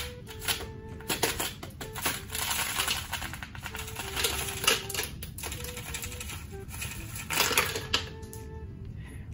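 Ice cubes cracking loose from a twisted plastic ice-cube tray and dropping into a blender jar: an irregular run of clicks and clattering knocks, with a few louder knocks now and then.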